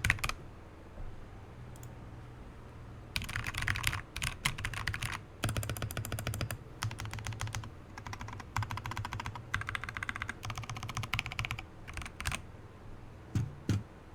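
Typing on a Royal Kludge RK71 mechanical keyboard fitted with lubed and filmed RK Brown tactile switches, lubed and filmed stabilizers, case foam and two layers of tape: bursts of rapid keystrokes broken by short pauses, the longest about three seconds in.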